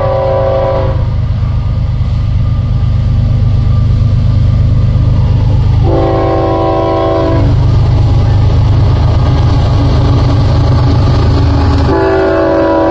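Union Pacific freight train's diesel locomotive horn sounding three times over the steady low rumble of the approaching diesel locomotives. The first blast ends about a second in, the second lasts about a second and a half around the middle, and the third begins near the end.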